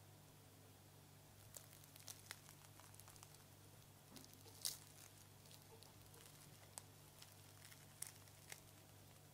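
Flaky crust of a freshly baked croissant crackling and tearing as hands pull it apart: a run of small, crisp crackles beginning about a second and a half in, the sharpest near the middle.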